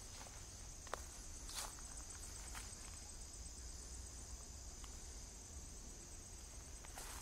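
A steady, high-pitched chorus of insects trilling. A few scattered footsteps fall in the first three seconds.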